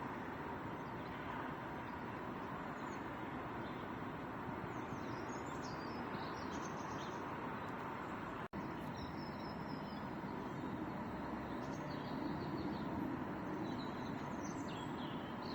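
Birds chirping now and then over a steady outdoor background noise, with a brief break about eight and a half seconds in.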